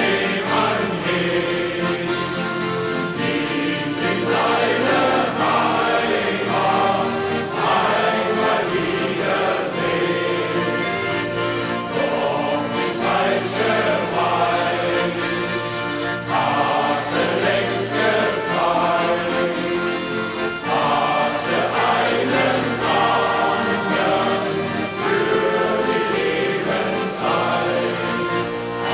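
Shanty choir of men singing a song in chorus.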